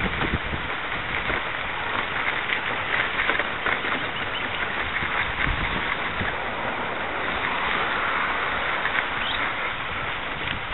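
Wind rushing over the microphone of a moving camera, a steady noise with scattered small clicks and rattles.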